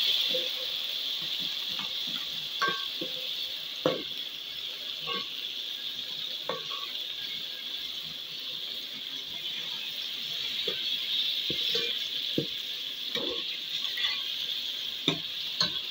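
Chopped tomatoes and onions sizzling in hot oil in a metal pot, with a steady hiss, while a metal spoon stirs them and knocks against the pot now and then.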